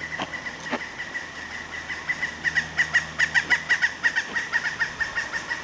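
Woodpecker calling: a long, even series of rapid high notes, about six a second, growing louder about two seconds in. Two faint clicks near the start.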